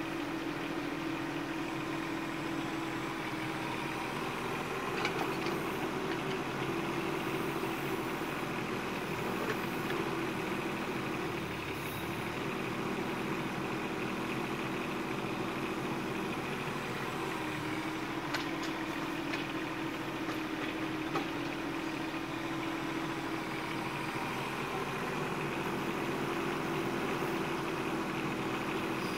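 Bobcat 418 mini excavator's diesel engine running steadily while the excavator digs, its note dipping and recovering several times. A few faint knocks sound now and then.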